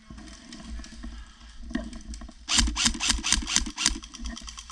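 M4-style airsoft rifle firing a fast full-auto burst of about a dozen shots over roughly a second and a half, starting about two and a half seconds in, with quieter rattling before and after.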